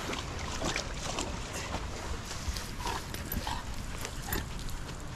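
A dog giving a few short whines, with splashing water and scattered clicks around it.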